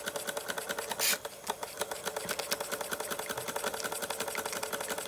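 Antique Bing vertical toy steam engine running fast, its small cylinder beating in rapid, even strokes over a steady hum. A brief burst of hiss about a second in.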